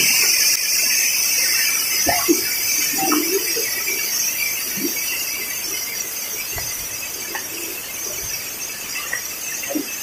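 Steady, high-pitched shrilling of a cicada chorus, growing gradually fainter.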